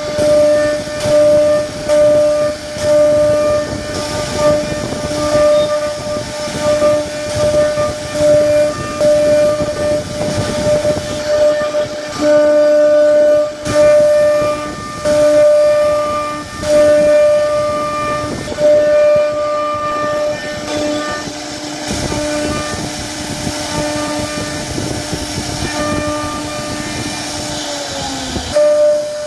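CNC router spindle whining steadily as a small carving bit cuts grooves into a solid wood panel, the whine swelling and easing every second or two as the bit bites into the wood, over a rough cutting hiss. The whine dips slightly in pitch near the end.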